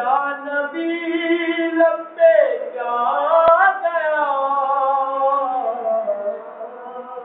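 A man singing an Urdu devotional naat addressed to the Prophet ("Ya Nabi") into a microphone, unaccompanied. He holds long, drawn-out notes with slow rises and falls in pitch.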